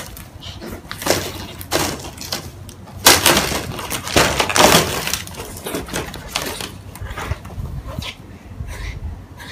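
Two cats fighting: a rapid series of short, harsh hissing bursts, loudest around three to five seconds in.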